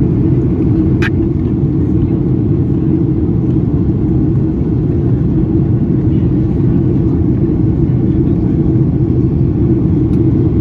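Steady cabin noise of a Boeing 737-800 in flight: the deep, even drone of its CFM56 jet engines and the rush of air past the fuselage.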